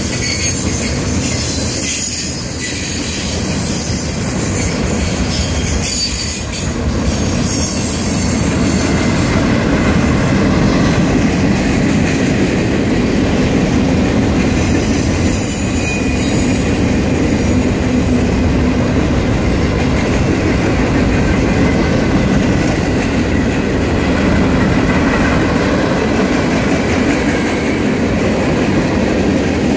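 A mixed freight train's boxcars and tank cars rolling past on the rails, a steady, loud rumble of wheels on track that grows louder about eight seconds in.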